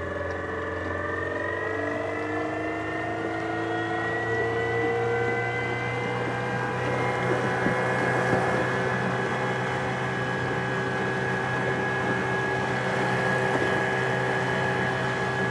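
Elco 48-volt electric outboard motor running up to speed under load, its whine rising in pitch over the first few seconds and then holding steady. Water rushes in the propeller wash and wake behind the boat.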